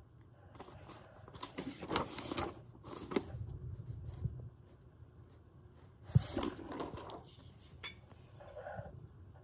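Rustling and light clinking as ceiling fan parts and small hardware are handled, in irregular spells, with one sharp knock about six seconds in.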